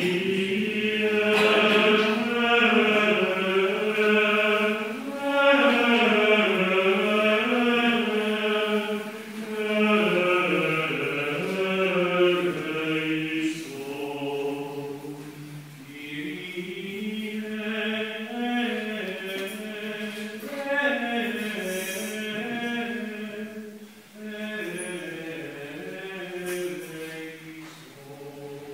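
Latin Gregorian plainchant of the Mass, sung unaccompanied in flowing phrases with short pauses for breath between them.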